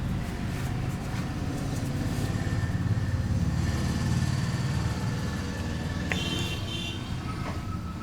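Steady low rumble that swells about three seconds in and eases toward the end, with a brief high-pitched ring about six seconds in.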